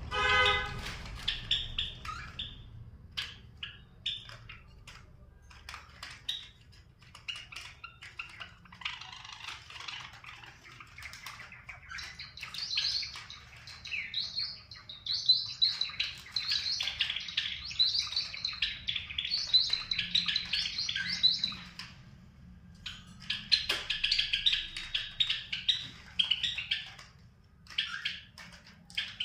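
Java sparrows and baby cockatiels chirping in rapid, overlapping calls. A short squawk comes at the start, and the chirping is busiest through the middle and again near the end.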